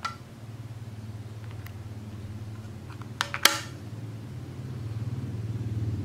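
Small plastic IR remote control set down on a glass tabletop: two sharp clicks with a short ringing, the second and louder one about three and a half seconds in. A single click with brief ringing comes right at the start, with a few faint ticks after it, all over a steady low hum.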